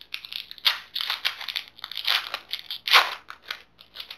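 Foil wrapper of a Pokémon TCG booster pack being torn open and crinkled: a run of rustling tears, loudest at about two-thirds of a second and again at about three seconds in.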